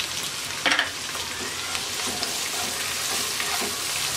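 Chopped onion sizzling in hot oil in a kadai while a wooden spatula stirs it, with a brief louder scrape of the spatula on the pan about a second in.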